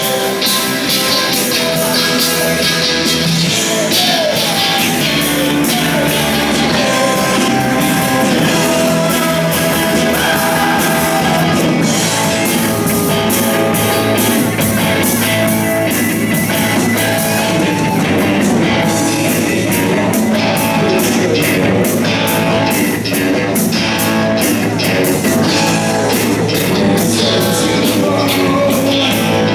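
Live rock band playing: several electric guitars and a bass guitar, with a male lead vocal.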